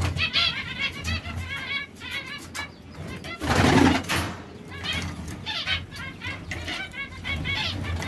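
Caged domestic canaries chirping and twittering in quick repeated notes, with a loud rustling burst about halfway through.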